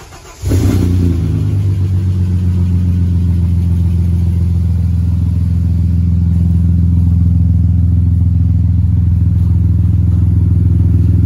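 Ford EF Falcon's engine starting: the last of the starter cranking, the engine catching about half a second in, then idling steadily through aftermarket extractors and a high-flow cat. The exhaust has a leak at a header gasket that does not fit, and the note is crisp.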